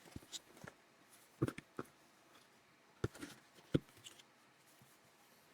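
Faint, scattered small clicks and taps, about eight in small clusters, from camera packaging and its contents being handled during an unboxing.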